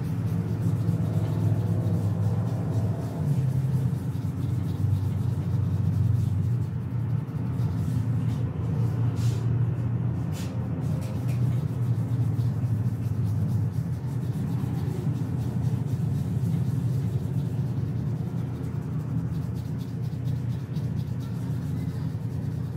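A steady low rumble and hum, with a few faint clicks about nine to eleven seconds in.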